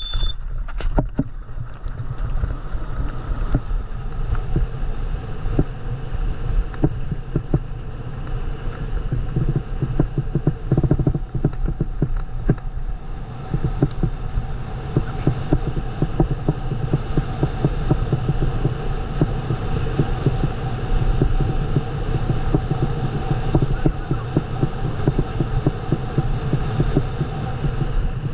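Bike rolling fast over a rough trail while pulled by a dog: a steady low rumble with constant rattling and knocks from the frame and wheels, and buffeting on the microphone.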